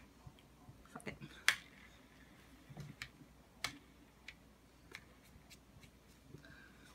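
Faint, irregular clicks and smacks of a mouth chewing a jelly bean, the sharpest about one and a half seconds in.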